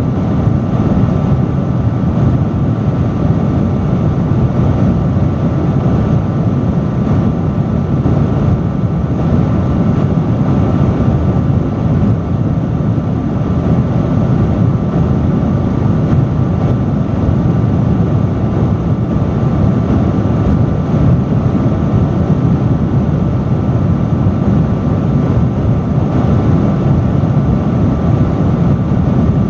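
Industrial fan running steadily at high speed, a loud, even rush of air with a deep low rumble and a faint steady hum from the motor.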